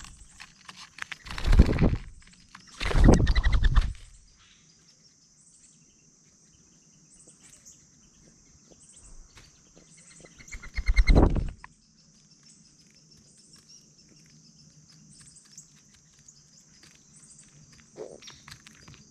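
Outdoor ambience with a steady high insect buzz throughout. Three loud, brief rushes of noise close to the microphone break in, two in the first four seconds and one about eleven seconds in.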